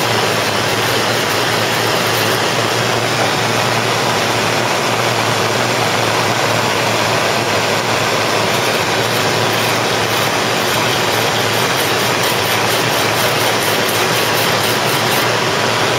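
Gas blowtorch flame burning steadily against a lead-filled car-body seam, melting out the lead filler. In the second half a wire brush scrubs the softened lead in quick strokes.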